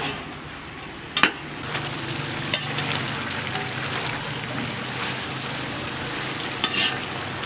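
Meat and carrots sizzling in a large pot over a fire while a ladle stirs them, with small clinks of the ladle against the pot. There is a sharp knock about a second in, the loudest moment.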